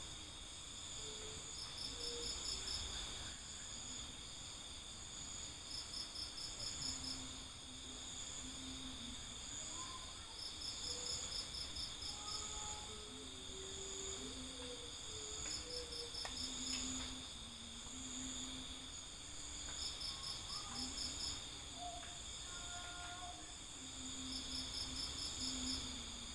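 Forest insects chirring steadily, with a second insect giving a rapid pulsed call of several quick pulses that repeats about every four to five seconds. Scattered short, faint low notes sound underneath.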